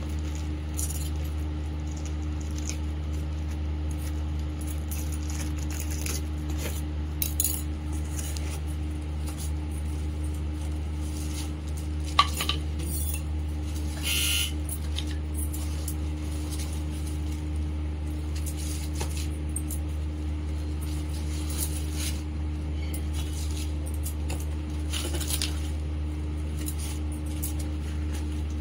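Weight plates and a bar in plastic wrap being handled and lifted out of a cardboard carton: scattered clinks, knocks and plastic crinkling, with one sharp knock about twelve seconds in, over a steady low hum.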